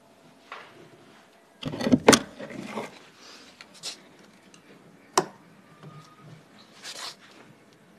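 Wooden stick and blocks knocking and scraping against each other and the rope lashing while the rope that stretches a hide drumhead over a wooden barrel drum is twisted tight. The loudest is a quick cluster of knocks about two seconds in, with a single sharp knock about five seconds in.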